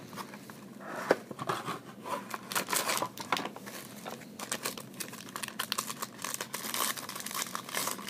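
Plastic wrapping crinkling and tearing as a trading-card box is unwrapped and the card pack's wrapper is ripped open, with irregular crackles.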